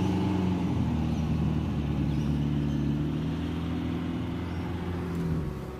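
A motor vehicle's engine running, a low steady hum that slowly fades out near the end.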